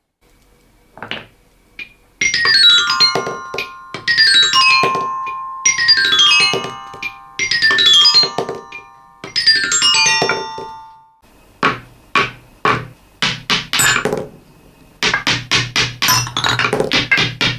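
Marbles rolling down a xylophone marble run, five times over. Each marble strikes the bars one after another in a falling scale of ringing notes. After that comes a quick series of hard clicks and knocks, packed more tightly near the end.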